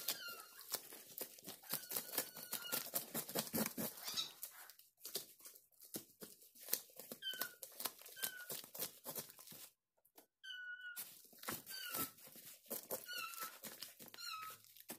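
Knife scraping the scales off a large whole fish in quick strokes, a dense run of rapid scratchy clicks, busiest in the first few seconds. Short high squeaks, each falling slightly in pitch, recur about once a second through the second half.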